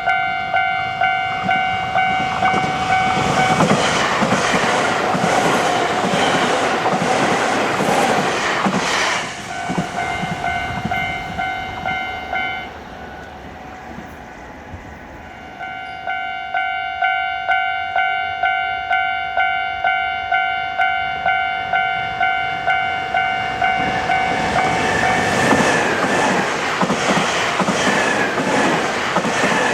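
Japanese level-crossing warning bell ringing in a steady, even ding-ding rhythm while a train clatters over the crossing. The bell stops about twelve seconds in, starts again a few seconds later, and a second train passes near the end.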